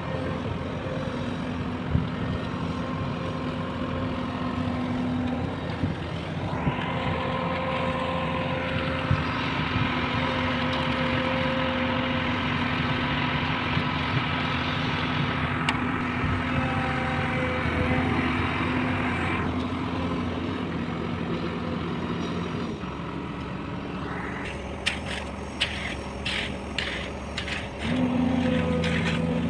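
Heavy diesel engine of a concrete mixer truck running steadily, with a short run of sharp knocks and clicks near the end.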